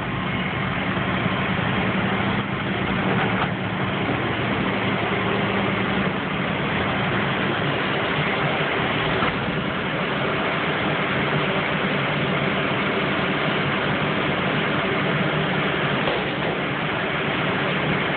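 A large engine idling steadily, a constant low hum with a steady tone under it.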